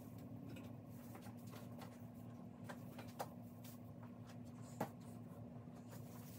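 Faint rustling and light clicks of artificial Christmas tree branches being handled and fluffed out, with two sharper clicks about three and five seconds in, over a steady low hum.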